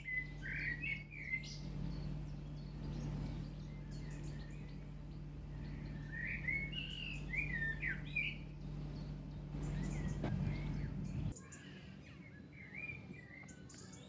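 Songbirds singing in a garden: short warbled phrases that come in spells, with pauses between. A steady low hum runs underneath and stops about eleven seconds in.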